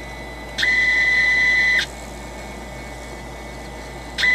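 Stepper motors of a Lumenlab micRo CNC router whining at a steady high pitch as the gantry moves the marker along a line. It happens twice: first from about half a second in, for just over a second, then again near the end. Each move opens with a short rise in pitch.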